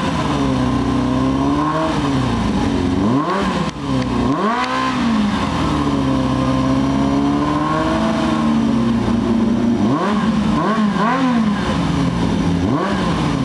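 Suzuki Bandit 400's inline-four engine revved through its exhaust. The pitch rises and falls slowly at first, then a sharp blip comes about four seconds in. A run of quick throttle blips follows near the end.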